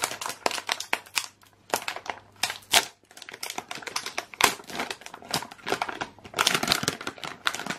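Foil-lined plastic blind-bag packet being torn open by hand, with irregular crinkling and crackling of the wrapper that thickens into a denser burst near the end.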